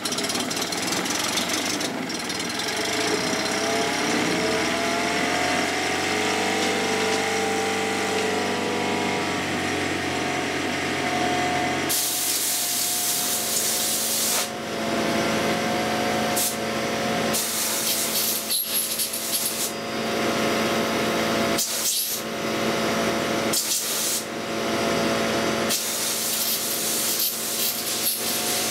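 Honda 15 hp four-stroke outboard running, its speed rising and falling in the first ten seconds and then holding steady. From about twelve seconds in, loud hissing bursts come and go, five in all, which fit compressed air blown into the cooling hose to clear a water passage blocked with salt.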